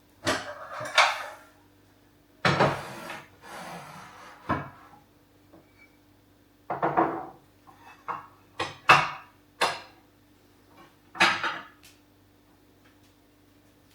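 Kitchenware being handled and set down while a kitchen is being organized: a string of separate knocks and short clatters of dishes and objects on hard surfaces.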